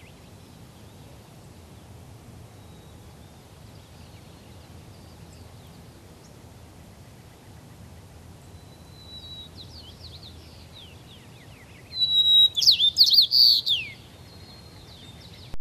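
White-crowned sparrow singing one song of about two seconds near the end. It opens on a held whistle and runs into a rapid series of falling notes. Before it come a few faint bird notes over a steady low background hiss.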